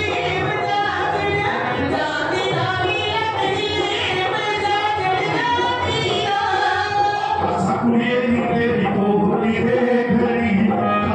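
Live Punjabi folk singing through a stage microphone and PA: a woman sings long, wavering held notes, then a man's lower voice takes over about eight seconds in.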